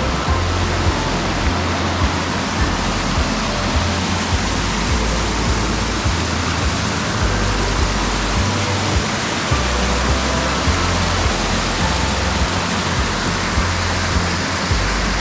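Rushing water of a mountain stream, a loud steady hiss, with background music carrying a low bass line underneath.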